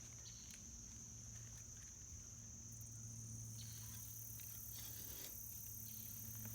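Steady high-pitched chirring of crickets, with a low steady hum beneath. A few faint scrapes and rustles of digging in the soil come about halfway through.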